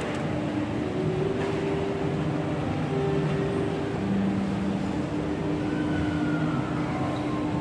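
Indoor shopping-mall ambience: a steady low rumble and hum, with a few soft sustained tones that change pitch every second or so.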